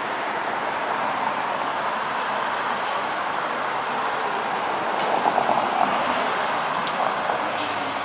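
Fire engine's diesel engine running steadily as the truck pulls out of its hall onto the street, mixed with street traffic noise, with a slight rise about five seconds in.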